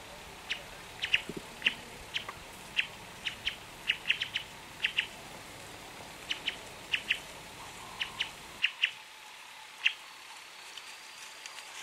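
Short, sharp chirping calls from a small animal, repeated at irregular spacing about twice a second over a soft outdoor background, stopping about ten seconds in.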